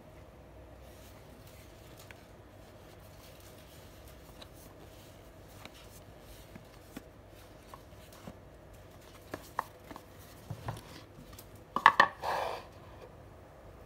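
Cardboard watch box being handled: faint taps and scuffs of fingers on the card. Near the end come a quick cluster of sharper knocks and a short scrape as the lid and box are set down on a wooden table.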